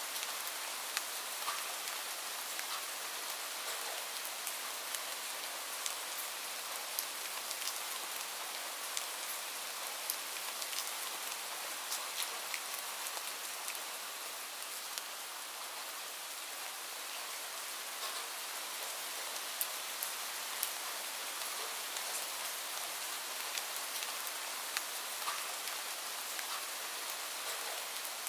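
Light rain falling steadily, a soft even hiss scattered with the sharp ticks of individual drops hitting a surface.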